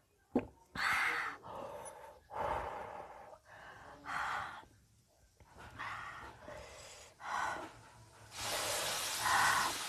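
A woman breathing hard through an open mouth, a string of gasping breaths in and out with a longer one near the end, her reaction to the burn of very hot chilli noodles.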